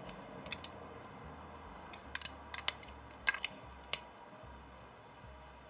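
Faint, scattered small clicks and ticks of hands handling tatting thread and lace, about a dozen over the first four seconds, over a low steady room hum.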